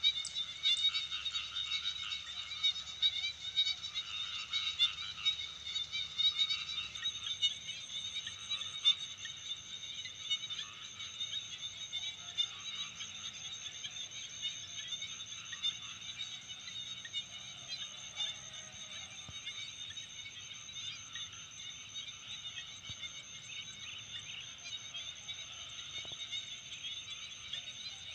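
Chorus of frogs in a rice paddy, many rapid pulsed croaking calls overlapping without pause. A steady high-pitched whine joins about seven seconds in.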